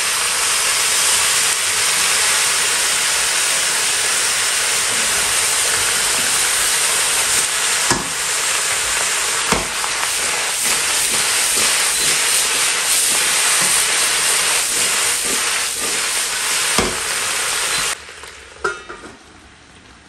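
Vegetables in a hot wok sizzling and steaming hard after a splash of water, a steady loud hiss with a few knocks as the pan is tossed. The hiss stops suddenly near the end, followed by a few light metal clinks as a lid goes on.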